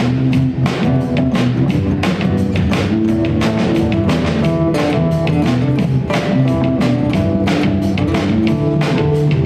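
Live band playing an instrumental passage with electric guitar and drum kit, a steady beat.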